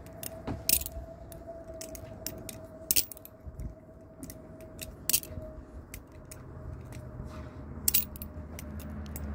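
Butterfly knife (balisong) handles clicking and clinking as they are flipped through repeated rollovers in the hand: sharp metallic clicks at irregular intervals, roughly one or two a second. A faint low rumble builds near the end.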